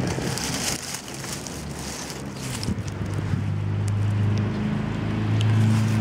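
A steady low engine hum grows in from about halfway through and gets louder, over wind on the microphone and light rustling of dry leaves.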